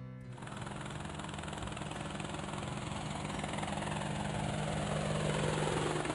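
Helicopter sound effect: fast rotor chop over a steady engine hum, growing steadily louder as it approaches.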